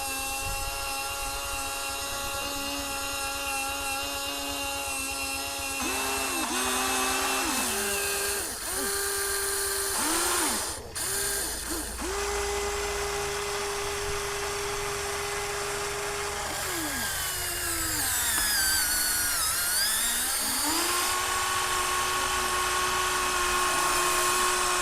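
Electric drive motors and plastic gearboxes of a Huina radio-controlled construction model whining. A steady whine for about six seconds, then a string of short starts and stops, a longer steady run, and a dip in pitch a little past the middle that climbs back before steadying again.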